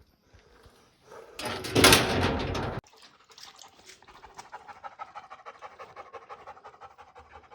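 A loud rush of noise for about a second and a half just after the start that cuts off suddenly, then a dog panting fast and evenly, out of breath after a walk.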